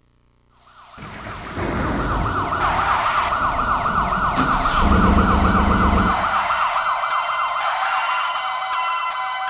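Synthesized siren sound effect from a TJ Media PRO-3000 karaoke machine's Roland SC-88 sound module: a fast warbling wail, about four sweeps a second, starting about a second in over a low rumble that fades after a few seconds. Chime-like tones join near the end.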